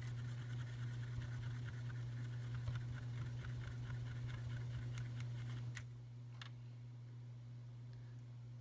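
Faint light scratching and dabbing of a watercolour brush working paint, with a few sharp clicks, over a steady low hum that gets quieter about six seconds in.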